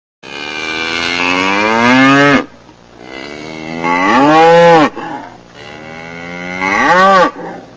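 Cattle mooing: three long, loud moos. The first rises steadily in pitch, and the second and third swell and then drop in pitch at their ends.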